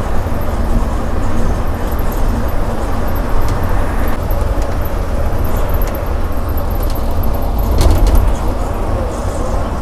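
Steady road rumble inside an Olectra C9 battery-electric coach cruising at highway speed, with tyre and cabin noise and no engine note. There are a couple of brief knocks, the clearest about eight seconds in.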